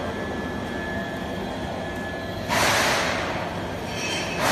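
Automatic kway teow rice-noodle sheet machine running with a steady low rumble. About two and a half seconds in, a loud hiss starts abruptly and fades, and another starts near the end.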